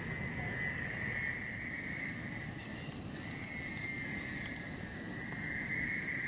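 Chorus of frogs calling from the water, a steady high-pitched trilling that goes on without a break, with a few faint crackles from a wood fire burning in a metal fire pit.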